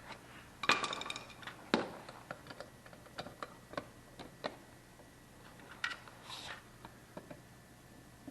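Scattered light clicks and knocks from things being handled, with a short rustling clatter about a second in and another near six seconds.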